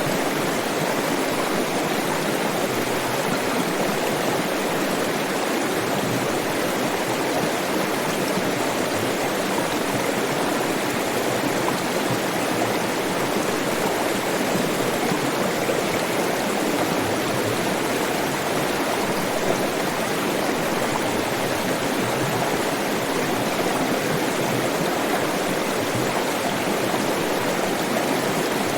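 Water flowing steadily in a stream, an even rushing with no breaks.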